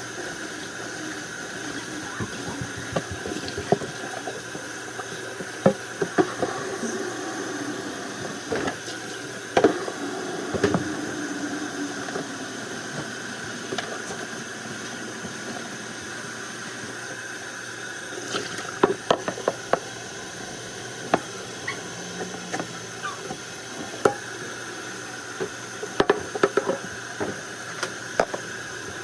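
Kitchen work sounds: scattered light knocks and clicks of things being handled, over a steady background hiss.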